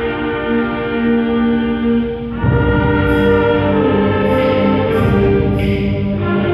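Middle school concert band of woodwinds and brass playing. Held chords give way about two seconds in to a louder full-band passage with low brass and a steady beat.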